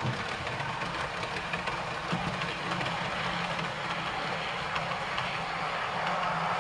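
00 gauge model tank locomotive hauling a rake of coaches on the layout: the steady whir of its electric motor with the wheels rumbling and lightly clicking over the track, slowly getting louder as it comes nearer.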